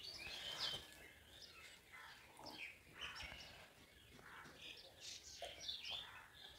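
Faint, scattered bird chirps in the background.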